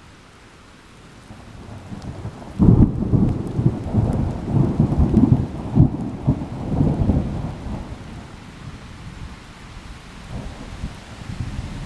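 Thunderstorm: steady rain, then thunder that builds and breaks sharply about two and a half seconds in. The thunder rolls on as a pulsing low rumble for about five seconds before fading back under the rain.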